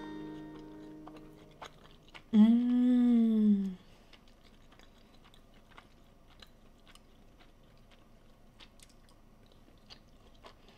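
Acoustic guitar notes die away, then a loud hummed 'mmm' of enjoyment lasting about a second and a half, rising and falling in pitch. Quiet chewing and small clinks of a fork on a ceramic plate follow.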